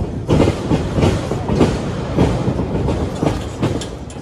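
Wrestling ring thudding and rattling under wrestlers running and rolling through a drill: a quick, irregular run of thumps and knocks over a low rumble, starting just after the beginning.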